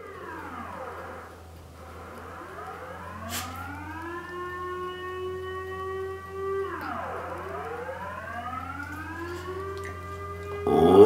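Dutch civil defence air-raid siren (luchtalarm) sounding its monthly test tone, faint and rising and falling in slow swells: it dies away, climbs over a couple of seconds, holds, drops and climbs again. Near the end a Samoyed starts howling along with it, much louder than the siren.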